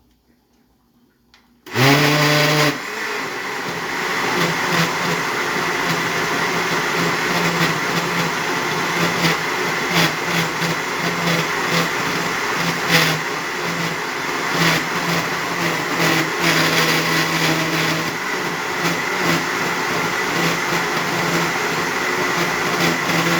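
Electric blender switched on a couple of seconds in, its motor rising briefly in pitch and then running steadily as it blends a thick pepper sauce.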